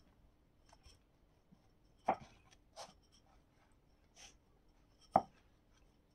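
Wooden rolling pin rolling out a sesame-coated piece of dough on a wooden board: faint rolling and rubbing with a few short knocks, the two loudest about two seconds and five seconds in.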